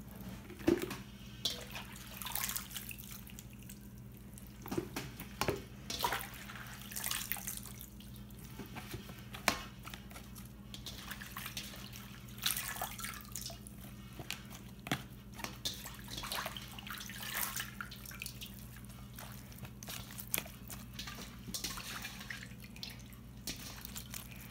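Handfuls of wet mustard greens being lifted out of a steel bowl of pickling liquid and packed into a plastic container: irregular drips and small splashes of liquid, over a steady low hum.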